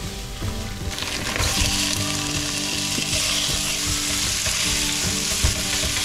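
Minced meat and chopped onion sizzling in a hot stone-coated pan, the sizzle swelling about a second in and then holding steady. A plastic meat chopper scrapes and taps against the pan as it breaks up the mince.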